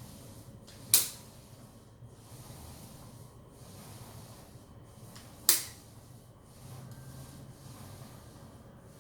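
Two sharp clicks about four and a half seconds apart, from a caulking gun's trigger being squeezed to push gap filler out of the tube.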